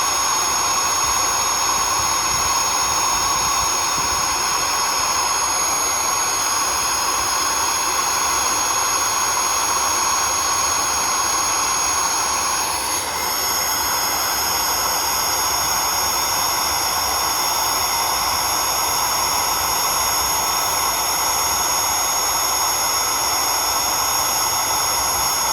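8.5-amp vacuum cleaner motor running flat out with its intake taped shut, so it gets no cooling air: a steady high whine. About halfway through the level dips briefly and the whine settles slightly higher in pitch.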